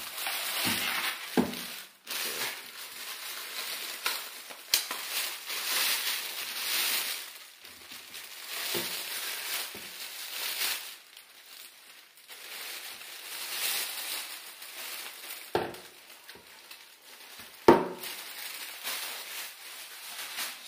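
Thin clear plastic bag rustling and crinkling as a subwoofer is pulled out of it and unwrapped, with two sharp knocks near the end.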